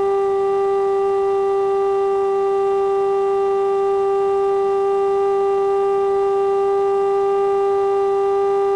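Remote-control plane's motor and propeller whining at a steady pitch, a single held tone with overtones, heard close up.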